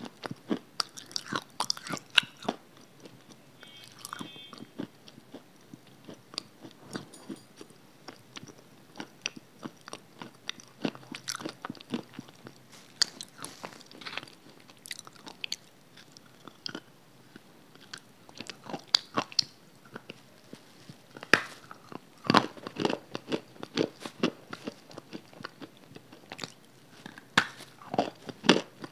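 Close-miked biting and chewing of a hard, crumbly pale grey block: irregular sharp cracks and crunches, loudest in a cluster about three-quarters of the way through.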